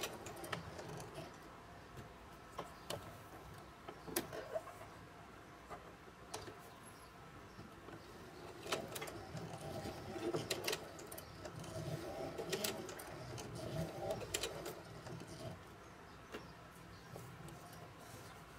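Singer Heavy Duty sewing machine turned slowly by its hand crank, stitching through a leather strap: irregular clicks and soft mechanical clatter from the needle and feed, busiest in two spells around the middle.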